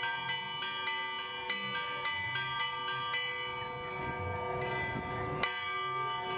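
Church bells ringing, struck over and over about twice a second, several tones sounding together and ringing on between strikes.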